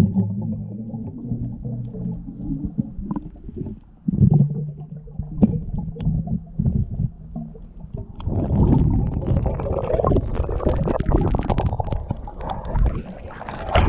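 Muffled water sound picked up by an underwater camera: a low rumble with a steady hum, then from about eight seconds in a louder churning of water with many small knocks as the spear works at a fish in the trap and comes up with it impaled.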